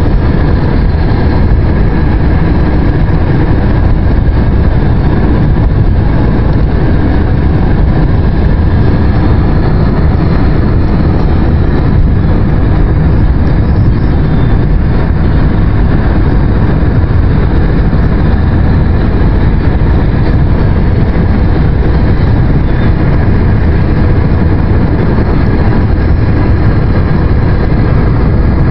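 Steady road and engine rumble heard inside a moving car's cabin, strongest in the low end.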